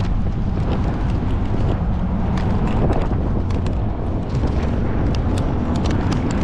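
Wind buffeting the microphone: a loud, steady low rumble, with scattered light clicks.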